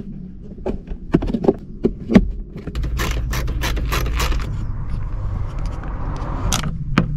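Hand work on plastic dashboard trim: a few sharp clicks as push-in plastic trim clips are seated, then a quick run of clicks and a steady scraping as a T20 Torx screwdriver turns screws into the glovebox housing.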